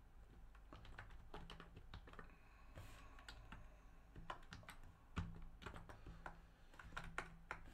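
Faint typing on a computer keyboard: irregular key clicks in short runs, one sharper click about five seconds in.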